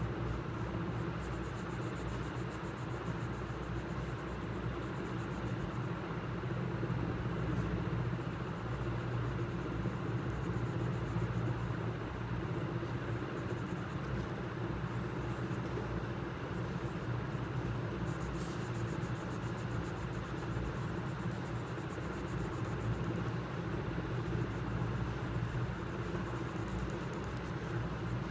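Steady low rumble and hum of background noise, unchanging in level, with no distinct events.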